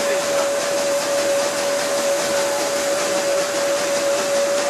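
A showman's road locomotive's generator running steadily, giving off one unwavering high whine over a constant hiss of steam and machinery.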